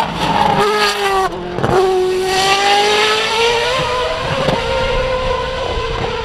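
Williams Formula 1 car's 2.4-litre V8 engine at high revs: the note falls and steps down through a downshift into the corner about a second in, then climbs steadily as the car accelerates out and away.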